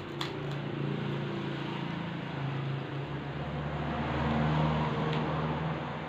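A motor vehicle passing by: engine hum and road noise swell to a peak about four and a half seconds in, then fade.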